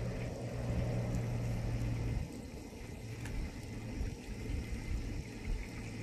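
A motor running with a steady low hum that drops away about two seconds in, leaving a low rumble.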